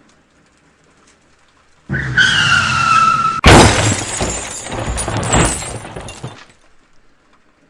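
Car crash: tyres skid with a falling squeal for about a second and a half, then a loud impact followed by breaking and shattering that dies away after about three seconds.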